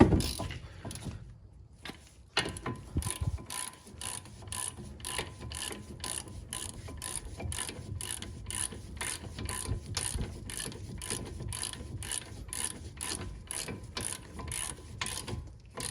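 Hand ratchet clicking in a steady rhythm, about two to three clicks a second, as the brake caliper bracket bolts are run in. The clicking starts a couple of seconds in, after a short bump of handling noise.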